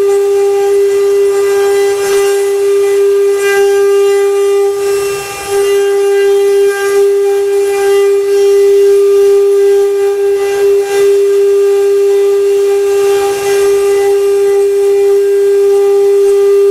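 CNC wood-carving machine's spindle running with a steady high whine, while the cutter chewing through wood adds a rush of noise that swells and fades every few seconds.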